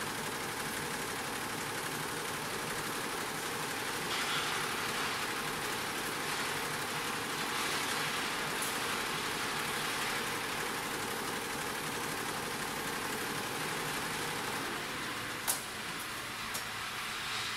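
A Butterfly 10-head, 9-needle embroidery machine running steadily at 750 rpm, its needle heads stitching together. Near the end comes a sharp click, after which the machine runs a little quieter.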